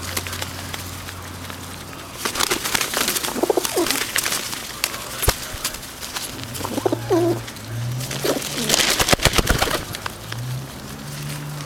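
Feral rock pigeons cooing in low, drawn-out notes several times, with two stretches of wing flapping and scuffling as they crowd in to feed from a hand.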